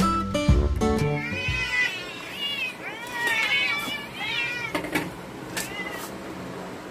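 Several domestic cats meowing over one another, hungry cats begging as food is brought to them. Acoustic guitar music fades out in the first two seconds, and a few sharp clicks follow the meows near the end.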